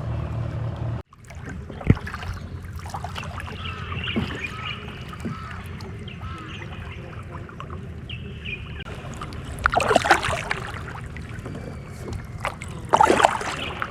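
Kayak paddles dipping and splashing in calm water, with two louder paddle splashes near the end. A steady low hum cuts off about a second in.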